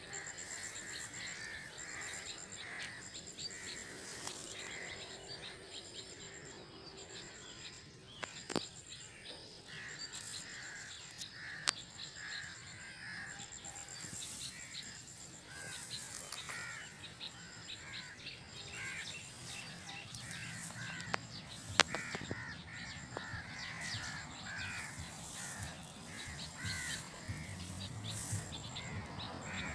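Birds chirping over and over in a garden, with a high buzz that repeats in short, evenly spaced pulses and a few sharp clicks.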